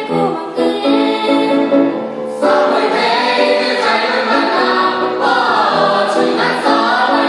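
A choir singing a song, with held, sustained notes that change every fraction of a second.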